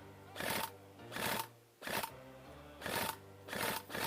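Short bursts of fire from an airsoft electric rifle, about six rattling bursts of a third of a second each, over background music.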